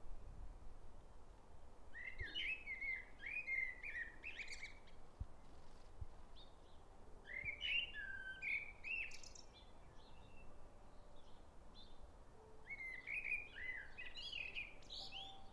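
Common blackbird singing: three unhurried phrases of fluty, gliding whistles with gaps of a few seconds between them, each phrase ending in higher, thinner twittering notes.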